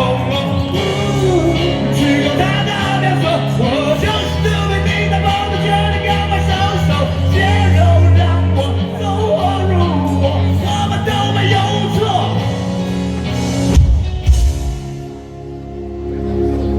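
Live rock band playing a song with a singer, loud and dense, until two hard accents near the end, after which the band drops to a quieter held chord.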